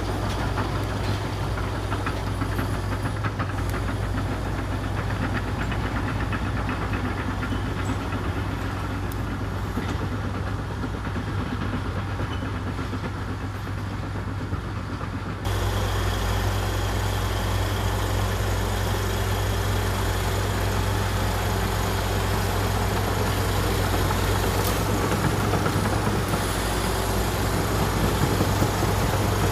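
Komatsu D61EX bulldozer's diesel engine running steadily. About halfway through the sound jumps abruptly and becomes louder.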